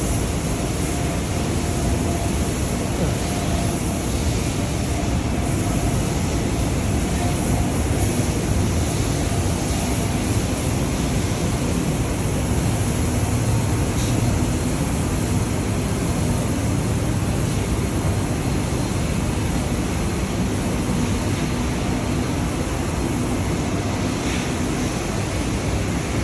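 Steady loud mechanical noise of factory machinery and ventilation, with faint steady hums under it.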